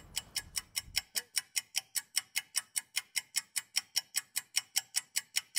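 Clock ticking sound effect, fast and perfectly even at about five ticks a second, marking time passing.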